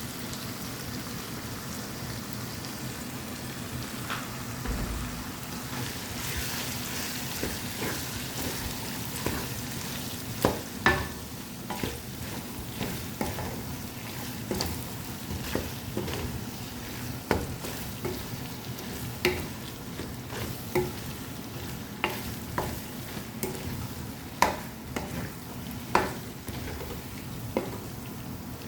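Chicken curry sizzling in a pan while it is stirred, with a spoon clicking and knocking against the pan every second or so from about ten seconds in.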